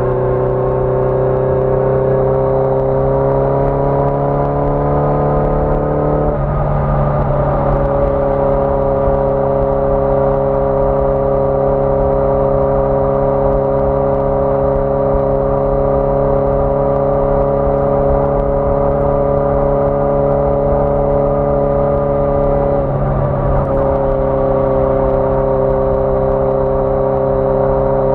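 Air-cooled inline-four engine of a 1981 Yamaha XJ650 Maxim motorcycle under way. It rises in pitch as the bike accelerates, drops with a brief break about six seconds in as it shifts up, then runs at a steady pitch while cruising, with a second short dip near the end.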